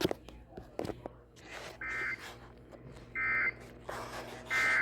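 Emergency Alert System end-of-message data tones: three short, identical buzzy bursts, each about a third of a second long and about a second apart, closing an alert on the radio. A few faint clicks come just before them.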